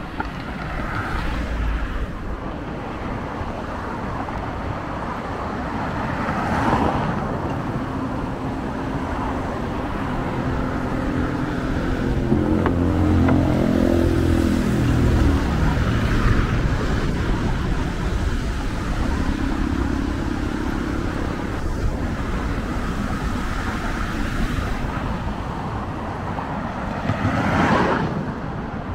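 Road traffic on the adjacent coastal road: cars passing one after another, with a louder engine going by about halfway through.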